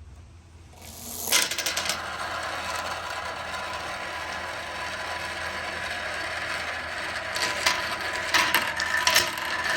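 Several balls rolling and rattling down wooden marble-run slopes, a dense steady clatter of wood on wood that starts about a second in, with sharper clacks near the end as balls hit turns and drop between levels.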